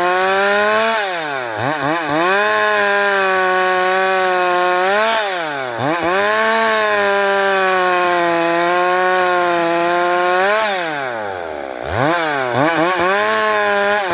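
Stihl MS 382 two-stroke chainsaw running at full throttle, ripping lengthwise through a pequi-wood fence post. The engine note dips briefly about a second and a half in and again near six seconds, then drops toward idle near eleven seconds before revving back up.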